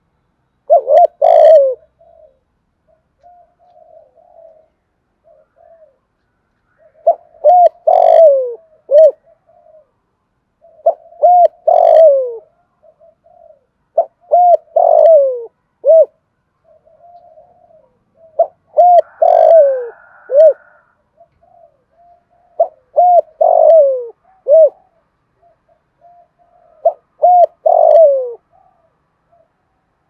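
Caged spotted dove cooing in the quick, urgent style that keepers call thúc gù. It gives a loud phrase of a few short coos ending in a longer falling note about every four seconds, about seven phrases in all, with soft low coos between them.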